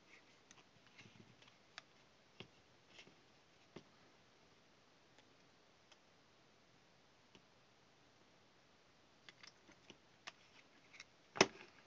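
Sparse, faint clicks and small knocks from handling a plastic drill housing and its wires while the old leads are desoldered from the motor terminals, with one sharper click near the end.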